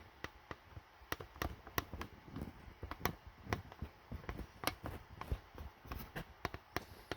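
Irregular light clicks and taps, a few a second, of metal hand tools and drill bits being handled while the bit is changed; no drill motor is running.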